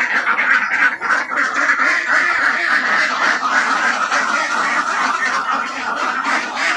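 A flock of domestic ducks quacking and calling continuously, many voices overlapping into a steady din.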